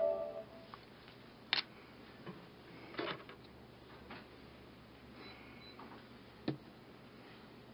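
Wooden tongue depressors being handled and set down on a wooden desktop: a few light, separate clicks and taps a second or more apart, over faint hiss. A brief tone sounds right at the start.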